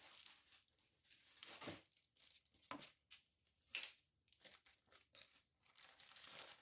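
Faint, irregular crinkling and tearing rustles of dried craft moss being handled and pulled apart, with a few louder rustles about two, three and four seconds in.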